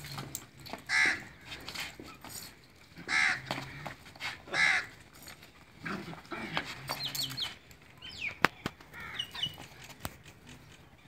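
A crow cawing three times, a second or two apart, followed by a few short high chirps from small birds.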